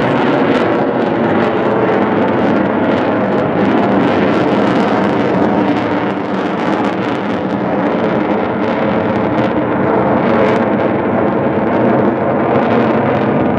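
Sukhoi T-50 (PAK FA) fighter jet's engines flying aerobatics overhead: a loud, continuous jet rumble with a rough crackle in it.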